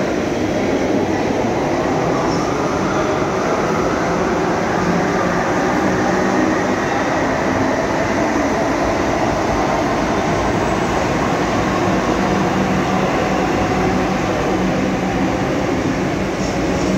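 Electric metro train moving along a station platform: a steady rumble of wheels on the track, with a motor whine that rises in pitch over the first few seconds as it picks up speed.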